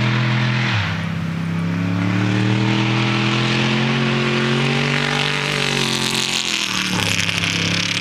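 Off-road race vehicle's engine under hard acceleration as it approaches and goes by. Its pitch drops suddenly about a second in, climbs steadily for several seconds, then drops sharply near the end, with a growing rush of tyres on gravel.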